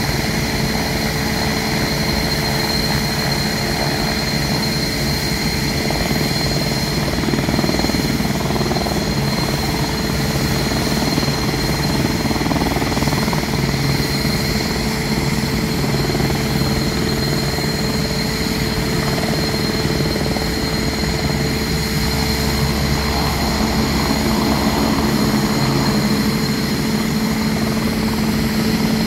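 Air-medical helicopter hovering low: a steady high turbine whine over the continuous noise of its rotor.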